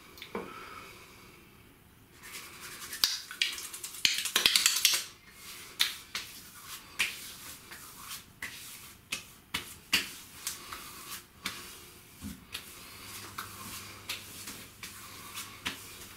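Hands rubbing shaving balm between the palms, then a long run of sharp, irregular skin-on-skin pats and slaps as the balm is patted onto the face and neck.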